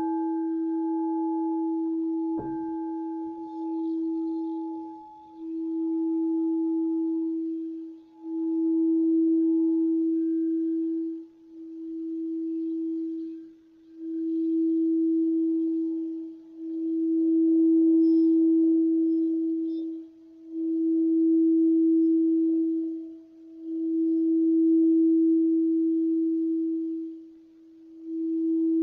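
Crystal singing bowl sounding: struck twice in the first few seconds, then one steady low tone that swells and fades about every three seconds, with a fainter higher overtone that dies away after the first several seconds.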